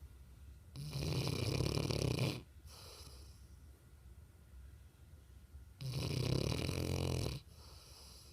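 Mastiff snoring in deep sleep: two long, loud snores about five seconds apart, each lasting about a second and a half, with a softer breath just after the first.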